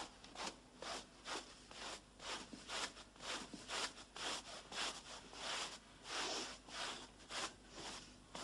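Hand brush scrubbing a rug in quick back-and-forth strokes, a rasping swish about twice a second.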